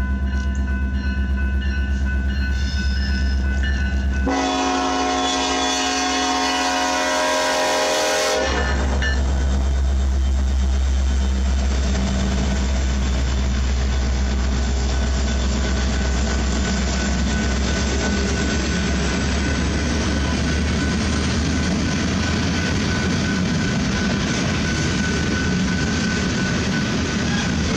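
BNSF freight train passing close by: diesel locomotives rumble, then the locomotive horn sounds one long chord for about four seconds from about four seconds in. After the horn stops, coal hopper cars roll by with a steady noise of steel wheels on the rails.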